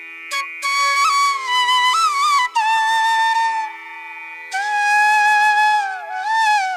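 Background music: a flute melody of long held notes with bends and ornaments, over a steady drone.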